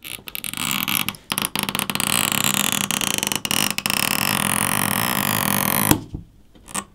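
Stretch-release adhesive pull tabs under a phone battery being pulled out: a long, rough stretching and tearing noise that breaks off suddenly near the end.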